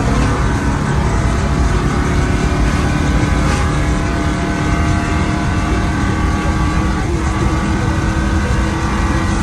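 Car engine running under steady load with road and wind noise, its pitch holding nearly constant.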